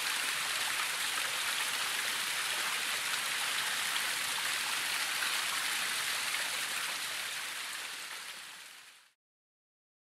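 A thin waterfall splashing down a rock face: a steady hiss of falling water. It fades out over the last couple of seconds and stops about nine seconds in.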